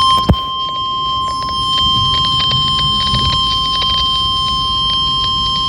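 NOAA Weather Radio 1050 Hz warning alarm tone: a loud, steady, high-pitched tone with overtones, sounded as the weekly test of the alarm that switches on weather radio receivers. A sharp click with a quick falling sweep comes about a quarter second in, over light static crackle.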